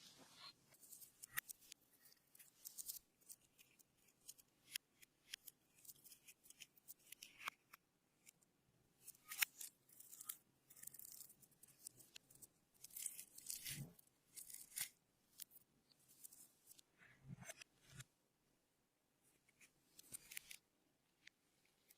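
Slime being worked by hand, making faint, irregular sticky clicks and crackles.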